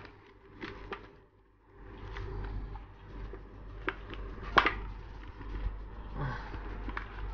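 Handling of a motorcycle helmet while its cheek pad is pulled out: padding and foam rubbing against the shell, with a few sharp clicks, the loudest about four and a half seconds in.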